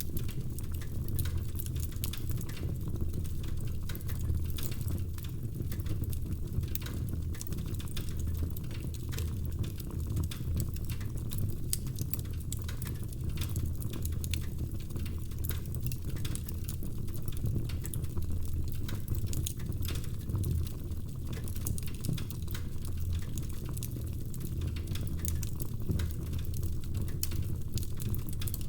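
Wood fire burning in a fireplace: a steady low rumble of the flames with many small, irregular crackles and pops from the burning logs.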